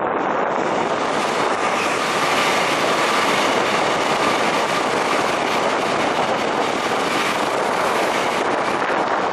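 Seoul Metro Line 1 retrofitted rheostatic-control electric train passing close by: a steady, loud rumble and rush of wheels on rail. A faint high tone sounds through the first half.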